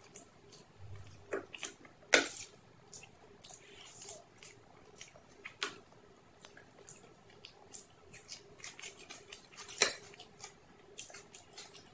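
Close-miked eating sounds: a metal spoon clinking and scraping on a steel plate while scooping rice, with small wet clicks of chewing in between. The two loudest clinks come about two seconds in and near the end.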